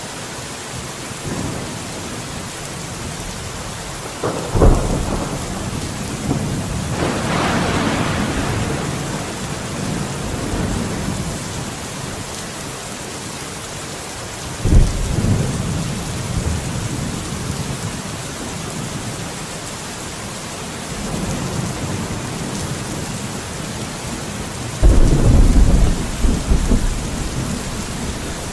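Steady rain with thunder. A clap about four seconds in rolls on for several seconds, another comes about fifteen seconds in, and a loud, long rumble starts near the end.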